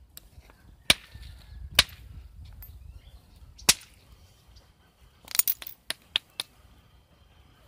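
Flintknapping: a hand-held percussion tool striking a stone held on a leather lap pad, giving sharp clicking cracks. The strikes come singly about a second, two seconds and nearly four seconds in, then in a quick flurry a little after five seconds, with two more just after six.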